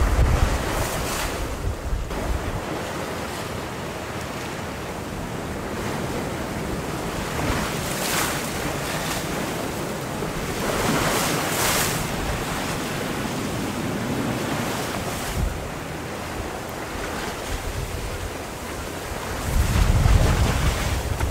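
Small lake waves washing through floating slush ice: a steady watery hiss that swells twice in the middle. Wind buffets the microphone with a low rumble at the start and again near the end.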